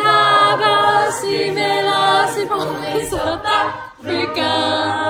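A group of voices singing held notes in harmony, a cappella.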